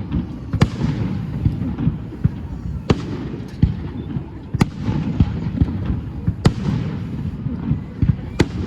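Aerial fireworks shells bursting at irregular intervals: a loud bang every second or two, with smaller pops between them.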